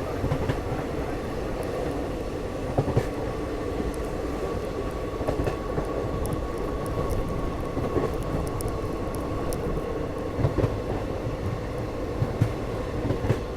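Passenger train running: a steady rumble with a faint continuous high tone, and scattered knocks and clicks from the wheels and coaches.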